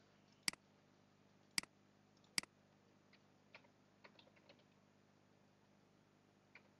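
Computer mouse and keyboard clicks: three sharp clicks in the first two and a half seconds, then a short run of softer key taps around four seconds in and one more click near the end.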